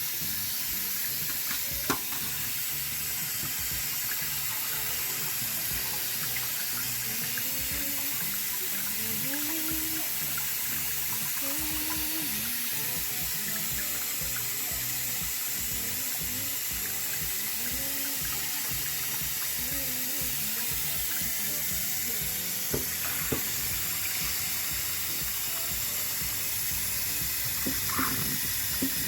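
Kitchen tap running steadily over rice in a strainer as the rice is rinsed, with a few light knocks.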